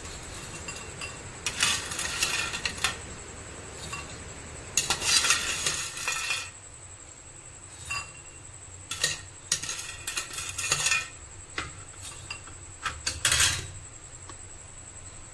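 A metal spoon clinking and scraping against a glass bowl while it shifts crisp fried ring murukku around. The clinks and rattles come in short clusters every second or two.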